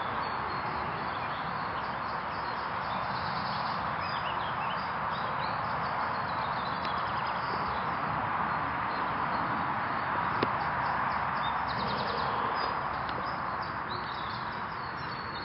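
Outdoor ambience: a steady hiss with faint, high bird chirps, and a single sharp click about ten seconds in.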